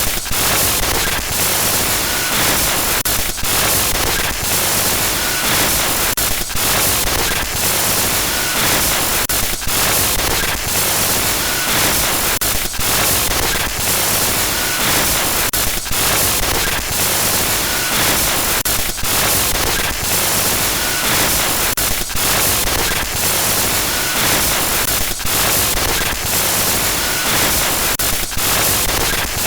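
Loud, steady glitch static: harsh hiss across all pitches, broken by brief dropouts, with a short faint high blip about every three seconds.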